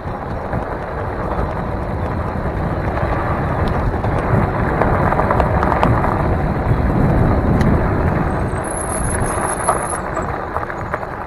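Wind rushing over the microphone and the fat tyres of a Mongoose Dolomite e-bike rolling on a gravel path downhill, with scattered small ticks from the gravel. The noise swells as the bike speeds up to about 15 mph and eases slightly near the end as it slows.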